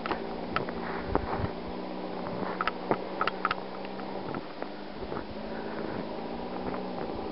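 Footsteps in snow: irregular soft crunches and short squeaks, clustered about a third of the way in, over a steady low hum.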